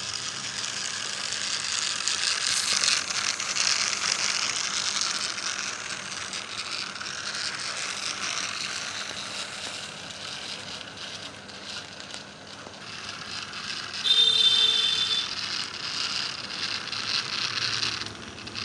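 Toy train running, its motor and wheels making a continuous fast clicking rattle. About fourteen seconds in, a short pitched tone sounds for about a second.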